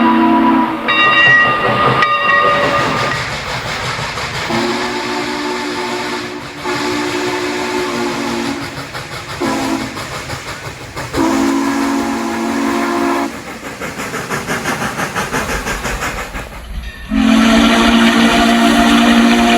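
Steam locomotive's chime whistle sounding several blasts of one steady chord: long, short, long, then a long one near the end. A higher-pitched whistle cuts in briefly about a second in. Between blasts there is steam hiss and the rhythmic chuff of the working locomotive, about four beats a second.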